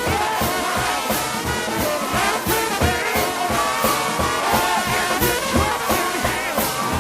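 Brass shout band led by trombones playing an upbeat church tune over a steady drum and cymbal beat.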